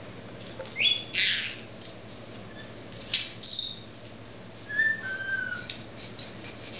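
Caged pet birds, a Senegal parrot among smaller cage birds, calling: a loud shrill call about a second in and another about three seconds in, two short whistles near five seconds, then soft repeated chirping.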